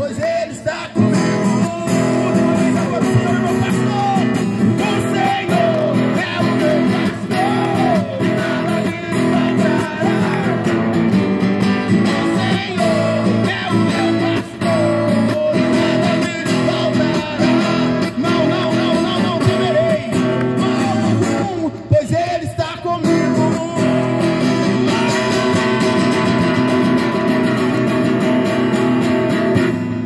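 A man singing a worship song into a microphone while strumming an acoustic guitar, with a short break about two-thirds of the way through.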